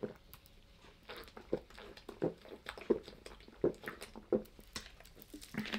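A man gulping a carbonated soft drink (Pommac) straight from a plastic bottle, a swallow roughly every 0.7 seconds.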